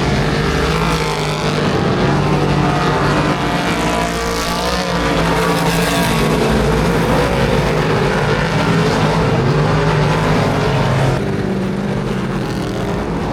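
Speedway car engines running and revving on a dirt track, loud and continuous, easing off slightly about eleven seconds in.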